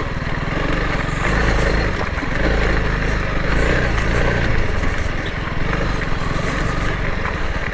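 Honda CRF300L Rally's single-cylinder four-stroke engine running steadily as the bike is ridden, over a steady hiss.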